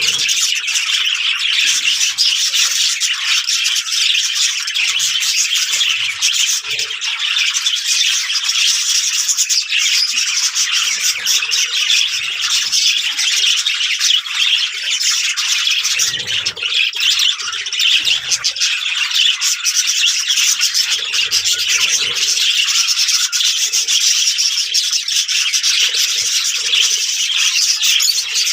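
A flock of budgerigars chattering without a break: a dense, steady mix of chirps and warbles.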